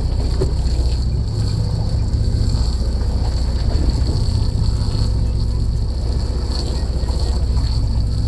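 Steady low rumble of wind on the microphone aboard a drifting boat at sea, with a faint steady high whine.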